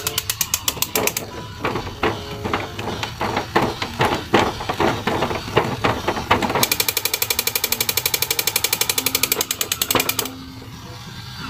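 Battery-operated toy Hulk figure with a rifle, making its electronic machine-gun sound effect: a rapid rattle of shots about ten a second, in two bursts, with irregular clicking and steady electronic tones between them.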